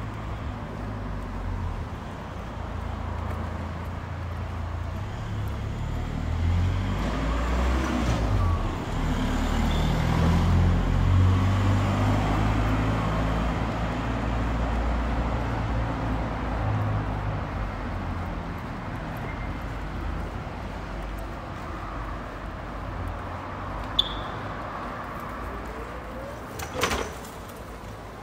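City street traffic: a car's engine and tyres rising and passing, loudest about a third of the way in, over a steady traffic rumble. Two short sharp clicks near the end.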